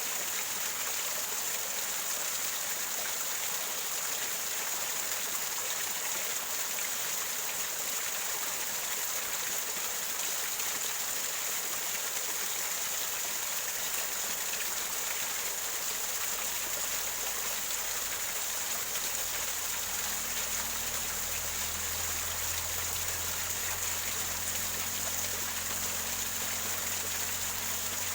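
Small waterfall gurgling and splashing over rocks in a steady, even rush. A faint low hum comes in about two-thirds of the way through.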